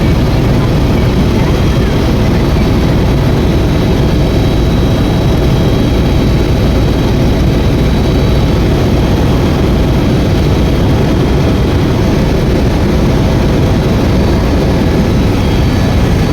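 Helicopter running: steady, loud rotor and engine noise with no change in pitch.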